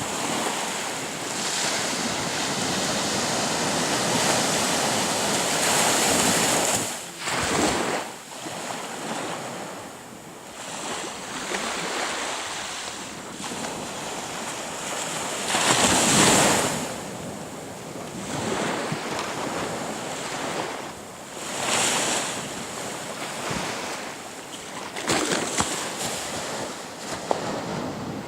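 Sea waves breaking and washing onto the shore. The noisy wash swells and ebbs in surges every few seconds, the loudest about halfway through.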